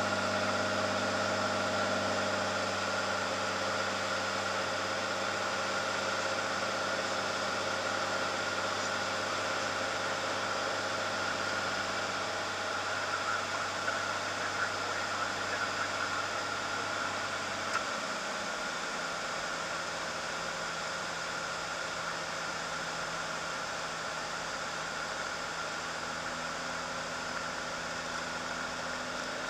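Cirrus single-engine piston aircraft's engine and propeller droning steadily, heard from inside the cockpit with a rushing hiss of air over it, on approach to land. About two-thirds of the way through the low part of the engine note drops and shifts as the power setting changes.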